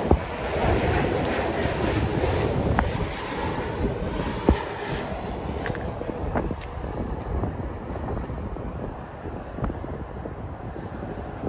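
A twin-engine jet airliner on low approach and landing. Its engines give a steady rushing noise with a high whine that slowly falls in pitch, and the whole sound fades as the plane passes and touches down. A few sharp clicks sit on top of it.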